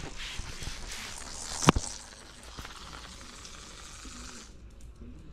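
Small hard toy ball rolling on a wooden floor: a steady rough hiss that cuts off near the end, with one sharp knock about a second and a half in.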